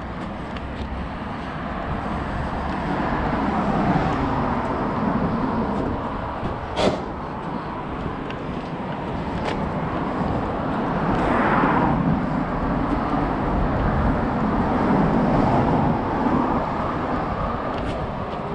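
Road traffic on a town street: cars passing, the noise swelling and fading around four seconds in and again from about ten to sixteen seconds. A sharp click about seven seconds in.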